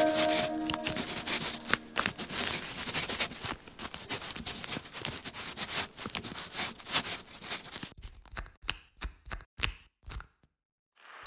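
Pen scratching across paper in quick, dense strokes of handwriting, with a soft piano chord dying away at the start. A few seconds before the end the scratching turns into a dozen separate, sharper strokes, then stops.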